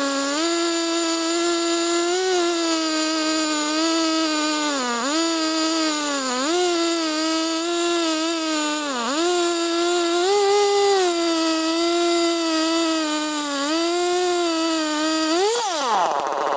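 Two-stroke chainsaw running at high revs through a cut, its pitch sagging briefly several times as the chain bites into the wood. Near the end it revs up once and the engine winds down as the throttle is released.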